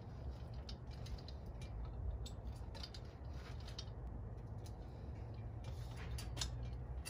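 Steel pivots and linkage of a homemade drill-and-angle-grinder stand clicking and creaking as its lever arm is worked up and down, over a steady low rumble. The drill and grinder are not running.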